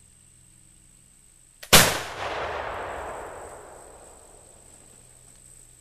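A Lyman Deerstalker flintlock rifle fires once about two seconds in: a faint click just before a single sharp report, followed by a long rolling echo that fades over about three seconds.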